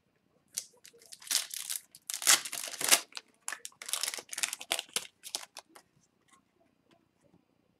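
Foil wrapper of an O-Pee-Chee Platinum hockey card pack crinkling and tearing as the pack is opened and the cards are slid out, in a run of quick rustling bursts that die away about six seconds in.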